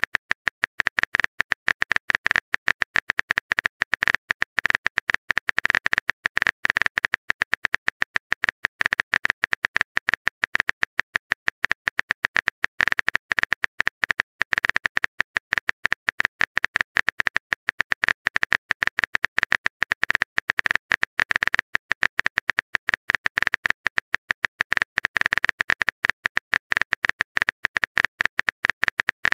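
Rapid phone-keyboard typing clicks, a steady stream of short sharp taps many times a second, as a message is typed out character by character in a texting-story app.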